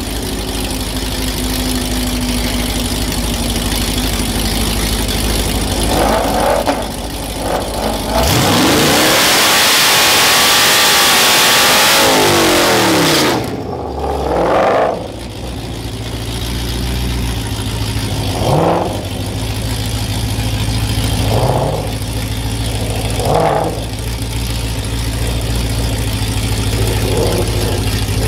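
Dodge Ram 1500's modified Hemi V8 idling, revved once, then held at high revs through a burnout of about five seconds, the spinning rear tyres hissing loudly over the engine note. It then settles to a steady idle broken by about five short throttle blips.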